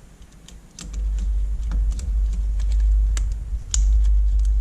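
Irregular light clicks and taps from small parts being handled, over a loud low rumble that sets in about a second in.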